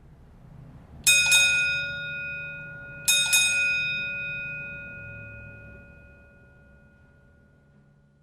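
A metal object struck twice, about two seconds apart, each strike a quick double hit. Each rings out with a clear bell-like tone that fades slowly over several seconds, over a low background hum.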